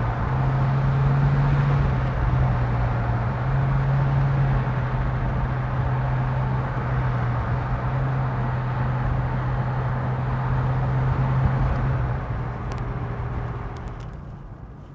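1991 GMC Syclone pickup's turbocharged 4.3-litre V6 running at a steady cruise, a low even drone under tyre and road noise, fading away over the last couple of seconds.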